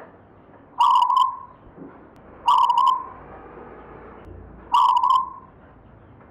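Zebra dove (perkutut) cooing: three short calls about two seconds apart, each with a quick rolling start and a brief held note.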